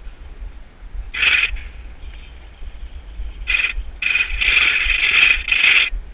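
Metallic scraping and rattling in three bursts: a short one about a second in, a brief one after three and a half seconds, and a longer one from about four seconds to near the end. It is climbing-harness gear running along the metal rails and grating of a roof walkway.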